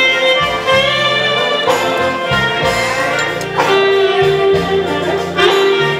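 Instrumental music with long held melody notes over a bass line that changes about once a second.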